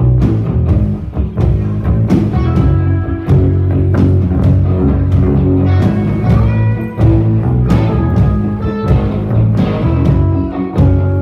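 Live rock band playing an instrumental passage: electric guitars over a drum kit, with a heavy low end. A lead guitar plays held, slightly bending notes over the band at times.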